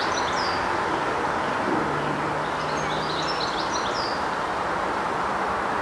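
Outdoor ambience of steady distant traffic noise, with a songbird singing a short phrase of quick descending notes at the start and again about halfway through. A faint low engine hum comes in for a second or two near the middle.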